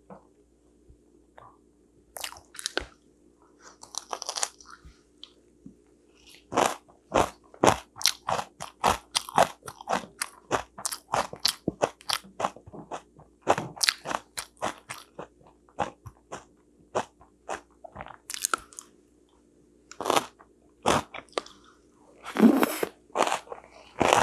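Close-up crunchy chewing of fresh napa cabbage kimchi (baechu geotjeori): crisp bites and crunches, sparse at first, then a steady run of about three crunches a second through the middle, picking up again near the end.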